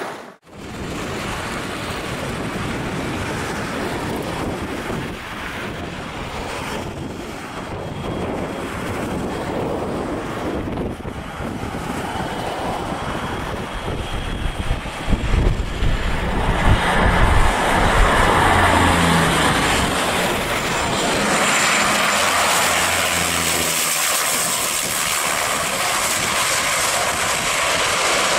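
Cessna Grand Caravan single-engine turboprop on final approach: a steady engine and propeller drone with a high turbine whine builds until the aircraft passes low and close, then the pitch steps down as it goes by. Gusts of wind rumble on the microphone during the loudest part.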